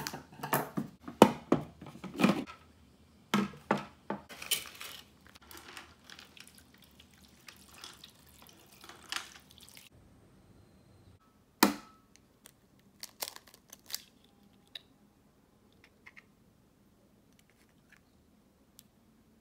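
A plastic spaghetti bag crinkling and being snipped open with scissors, a run of sharp rustles and clicks for about the first half. After that an egg is cracked with one sharp tap, followed by faint clicks of eggshell as the yolk is separated.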